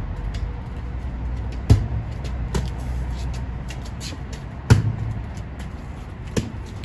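Two sharp slaps of a volleyball being struck by hand or forearm, about three seconds apart, with a couple of fainter taps between and after. A steady low rumble runs underneath.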